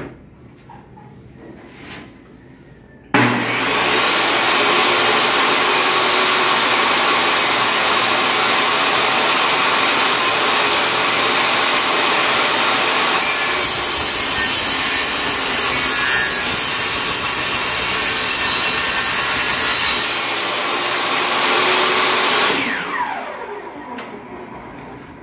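Portable table saw with a 60-tooth blade starting up suddenly and running with a steady high whine, then cutting through a laminated board for about seven seconds. It runs free again briefly, then is switched off and winds down with a falling pitch.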